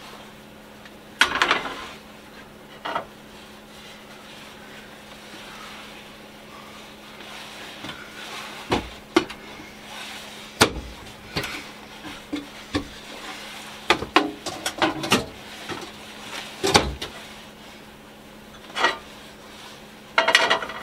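Frying pan and cookware clanking, with a cupboard door knocking, as a pan is taken out of a cabinet and set on a stovetop: a dozen or so separate sharp knocks spread through, over a steady low hum.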